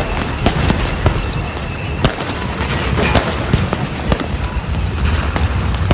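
Fireworks and pyrotechnics going off: an irregular run of sharp bangs and crackles, several a second, over a continuous rushing noise.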